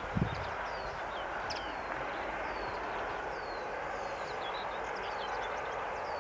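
Small birds chirping in many short, high, falling calls over a steady rushing noise from a PKP SU45 diesel locomotive still far off down the line. There is a brief low thump near the start.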